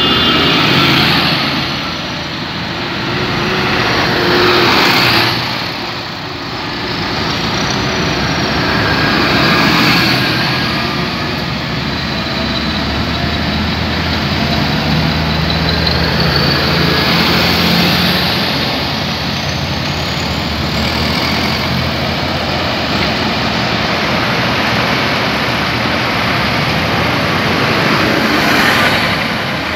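A column of farm tractors driving past one after another, their diesel engines running and tyres rolling on the road, the sound swelling several times as the nearer tractors go by.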